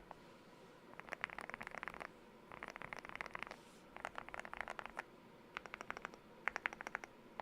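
Typing on a Leobog Hi75 mechanical keyboard with lubed Gateron Milky Yellow linear switches, tape-modded and foamed, under MOA-profile keycaps. The keystrokes come in five quick bursts of rapid key presses separated by brief pauses.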